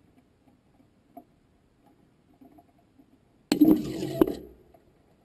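A sudden loud metallic clank and rattle on a rocket's onboard camera, about three and a half seconds in, lasting about a second with a sharp click inside it before it fades. Faint light ticks come before it.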